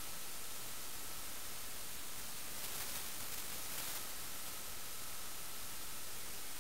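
Steady hiss of static from an analog FPV video receiver's audio channel, with faint steady high tones in it. The hiss brightens briefly twice in the middle, as the 1.3 GHz video link breaks up.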